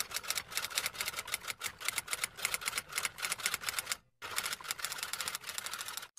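Typewriter sound effect: a fast run of key strikes that pauses briefly about four seconds in, then resumes.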